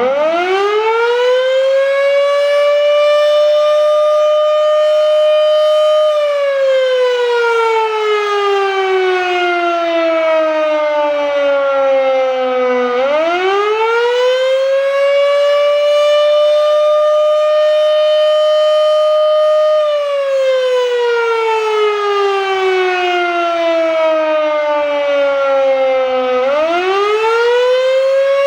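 Federal Signal Model 7B electromechanical fire siren sounding a single loud tone. It winds up to full pitch in about four seconds and holds there, then slowly falls away over about seven seconds before being run up again. The wind-up comes three times in all, the last near the end.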